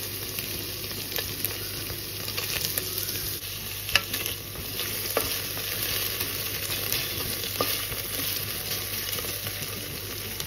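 Boiled potato cubes, onions and curry leaves frying in hot oil in a stainless steel pan, sizzling steadily while a spatula stirs them, with a few knocks of the spatula on the pan.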